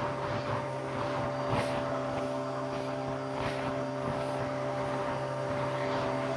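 Vacuum cleaner motor running steadily while the bare end of its hose is swept over a shag rug, with irregular crackles of debris being sucked up.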